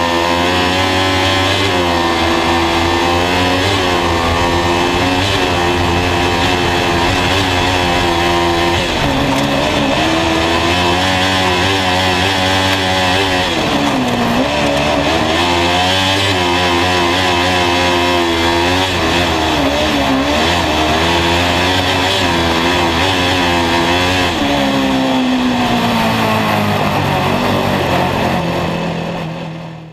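Kart cross buggy's Honda CB500 motorcycle engine heard from inside the cockpit, revving hard and repeatedly dropping and climbing in pitch as the driver lifts and brakes for bends and accelerates out of them. The sound fades and cuts out near the end.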